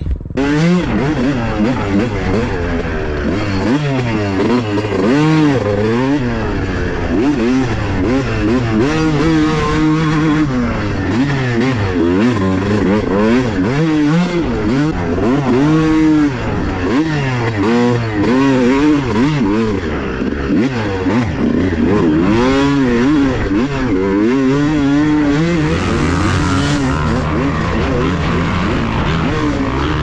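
Honda CR250 two-stroke single-cylinder dirt bike engine being ridden hard, heard on board. The pitch climbs and falls back over and over as the throttle is opened and shut through the gears.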